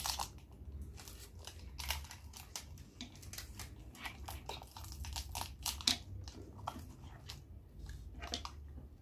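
Irregular small clicks, taps and crinkles of a plastic push-up toy capsule being handled and fitted back onto its stand.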